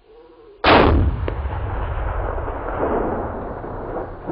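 A single shot from a 6.5 Creedmoor bolt-action rifle (Remington Model 700) about half a second in, followed by a long rolling echo that fades slowly.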